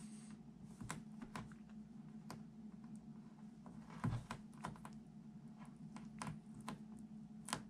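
Faint, irregular clicks and crackles of thick Gorilla tape (duct tape) being rolled tightly into a tube by hand against the edge of a plywood bench, over a steady low hum. A couple of the ticks, about four seconds in and near the end, are a little louder.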